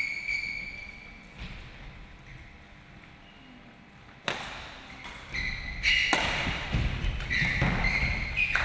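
Badminton play on a sports-hall court: after a quiet stretch, a sharp racket strike on the shuttlecock about four seconds in, followed by more hits, footsteps and short high squeaks of shoes on the court floor.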